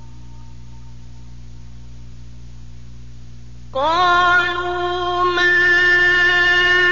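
Male Quran reciter chanting in the melodic mujawwad style: a low steady hum for the first three and a half seconds, then he opens one loud, long, held note.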